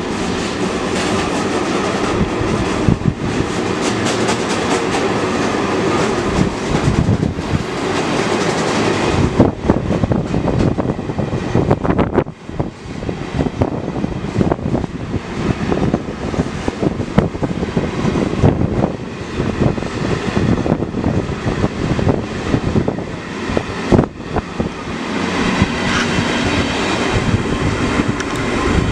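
Ore train hopper wagons passing close by on the next track, their wheels clattering and knocking over the rail joints, heard from an open train window. The last wagon goes by near the end.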